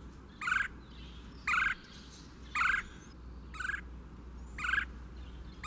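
Red-cockaded woodpecker calling: short calls repeated about once a second, six times.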